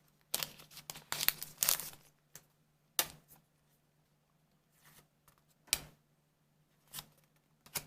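Trading cards being handled: a quick run of papery rustles and slides in the first two seconds, then single card flicks about a second apart as the cards are turned over one by one. A faint steady hum runs underneath.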